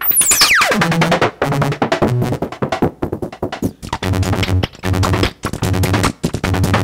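Make Noise Strega synthesizer playing a rhythmic pattern of short, clicky percussive hits and pitched notes. The pattern is sequenced by the 0-Ctrl, and the notes are played from a keyboard. It opens with a fast downward pitch sweep, from a high whistle to a low tone in under a second.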